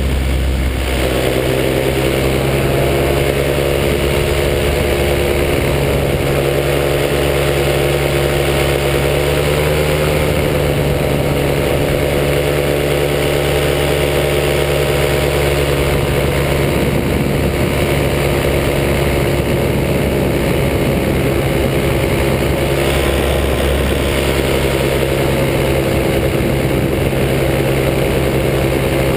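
Paramotor engine and propeller running steadily in flight at an even throttle, the pitch rising slightly for a moment about ten seconds in.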